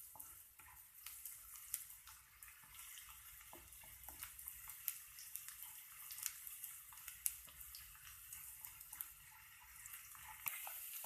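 Chopped onions and green chillies frying in a kadhai on high heat: a soft, steady sizzle with frequent small crackles and pops as they brown.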